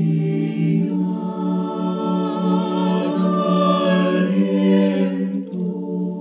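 Mixed choir of men's and women's voices singing slow, held chords in Spanish, with the words "al viento". The chord changes about a second in and again near the end.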